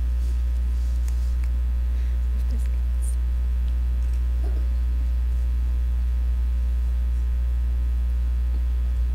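Steady low electrical mains hum from the microphone and sound-system feed, holding at one level with no speech over it.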